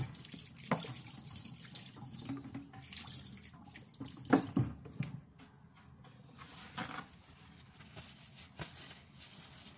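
Kitchen tap running into a stainless steel sink, a steady splashing hiss as hands are washed, with a few knocks about a second in and a louder pair around the middle.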